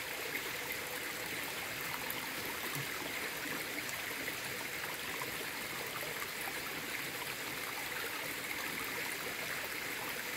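A small river running with a steady rush and trickle.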